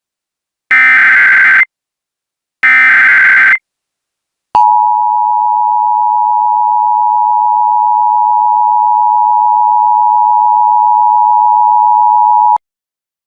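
Emergency Alert System tones: the last two of three short SAME header data bursts, each about a second long, then, after a one-second gap, the steady two-tone EAS attention signal held for about eight seconds before cutting off sharply.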